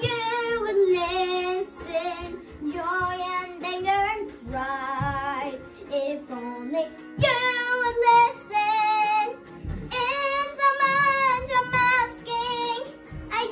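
A young girl singing a musical-theatre song solo, holding long notes with a wavering vibrato.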